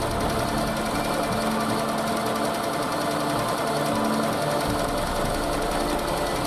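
Delzer single-cylinder petrol engine running steadily with a fast, even clatter, belt-driving a homemade generator.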